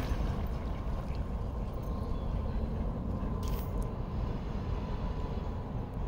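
Steady low outdoor rumble with no clear single source, and a brief high hiss about three and a half seconds in.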